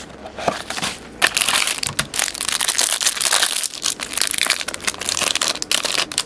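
Crinkling and tearing of the plastic wrap on a sealed box of trading cards as it is pulled open, a busy crackling rustle that cuts off suddenly at the end.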